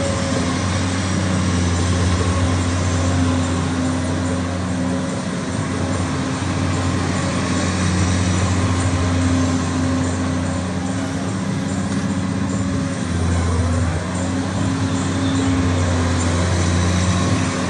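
Komatsu PC200-8MO excavator's six-cylinder diesel engine running steadily, with a low hum whose level and pitch shift slightly now and then.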